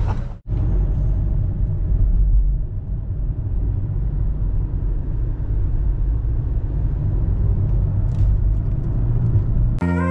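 Steady low road rumble inside a moving car, a 2017 Toyota Prius, heard from the cabin, after a brief dropout about half a second in. Guitar music cuts in near the end.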